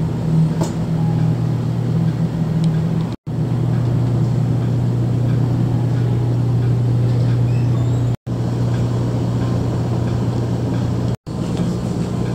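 Steady low drone of a passenger ferry's engines and shipboard machinery, heard inside the passenger cabin, broken three times by momentary silent gaps.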